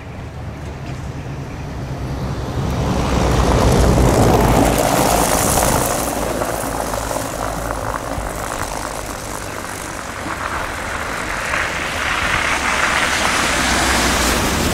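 Road traffic on a slushy, snow-covered street: a steady low rumble, with the noise of passing vehicles swelling about three to six seconds in and again near the end.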